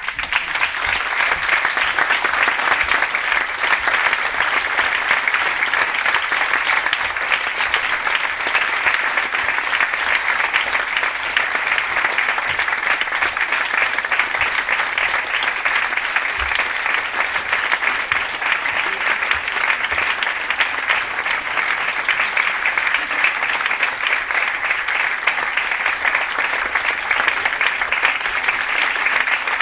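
Audience applause that starts all at once and keeps up, dense and steady.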